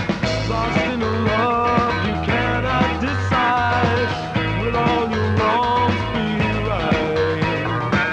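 Rock band playing a song: drum kit, bass and electric guitar at a steady pace, with a gliding melody line on top.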